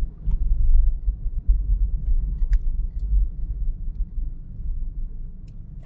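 Car driving at road speed: a low, fluctuating rumble of road and wind noise, with a light click near the end.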